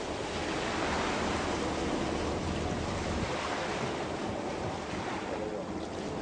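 Steady rushing of wind and sea water at the bow of a sailing brig on a calm sea, an even noise with no distinct splashes.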